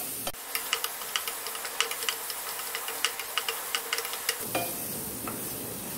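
Onions and ground ginger-garlic-green-chili masala paste sizzling in oil in a non-stick frying pan while a flat spatula stirs and scrapes, with many quick light clicks of the spatula against the pan. The paste is being sautéed until its raw smell goes.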